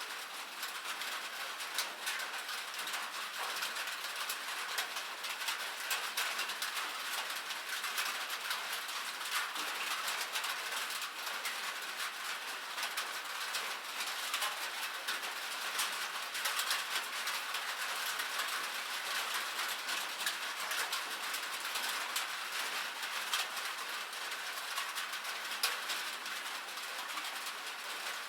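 Steady rain on a cabin roof: a dense, even hiss of countless small drops ticking on the roof, with no thunder.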